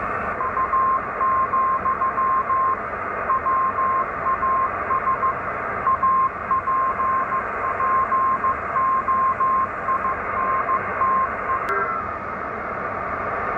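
Morse code (CW) signal heard through an ICOM IC-725 HF transceiver's speaker: a steady mid-pitched tone keyed in dots and dashes over a bed of band-noise hiss. A click comes near the end, as the radio is retuned.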